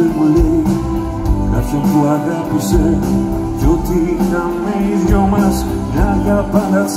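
Live rock band playing an instrumental passage: a wavering lead melody over guitar, bass and drums, heard through the venue's PA.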